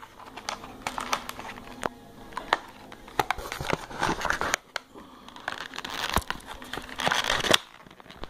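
Packaging crinkling and rustling, with scattered sharp clicks and taps, as a small SSD is worked out of its box; longer spells of crinkling come about four seconds in and again near the end.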